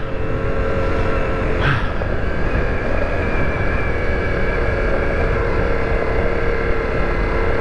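Ducati Multistrada V4 Rally's V4 engine running steadily at low revs in first gear on a rocky trail, over a low rumble.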